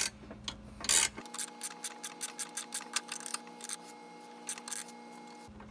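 Ratcheting combination wrench clicking rapidly as it turns the mower deck's height adjuster nut, raising the deck. Two sharper knocks in the first second, then a run of quick small ticks.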